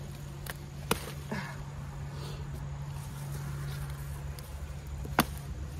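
Green bell peppers being picked, their stems snapping off the plant in a few short sharp clicks, the loudest about five seconds in, over a steady low hum.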